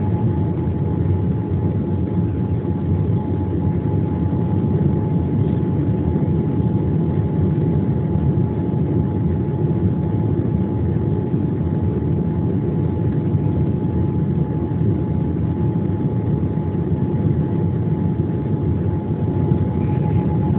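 Steady drone of jet engines and airflow heard inside an airliner cabin, a dense low rumble with a thin steady whine above it.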